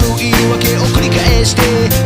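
Background pop music with a steady drum beat and bass.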